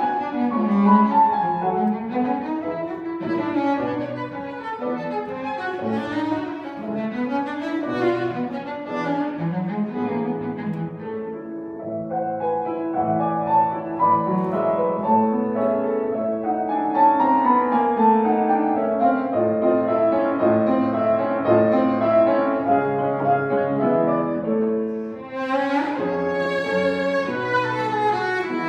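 Bowed cello music, several parts sounding at once, with a brighter, fuller passage near the end.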